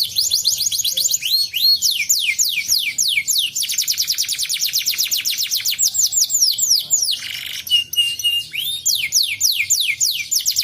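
Canary singing in fast trills: long runs of quick notes, each sweeping down in pitch, many to the second. About seven seconds in, the rolls give way briefly to a buzzy note and a few short level whistles before the trills resume.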